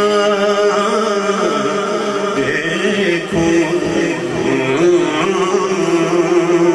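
A man reciting a naat into a microphone, singing long drawn-out melismatic notes with a wavering vibrato, amplified through a sound system.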